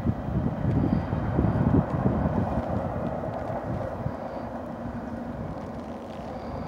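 Wind buffeting the microphone in gusts, strongest in the first few seconds, over a steady distant rumble from a BNSF intermodal freight train receding, slowly fading.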